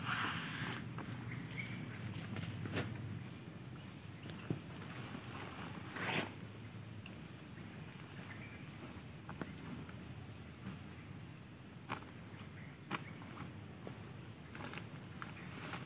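Steady high-pitched chorus of forest insects. Over it come scattered short rustles and crunches of dry leaf litter and backpack fabric as a person steps about and handles a large backpack.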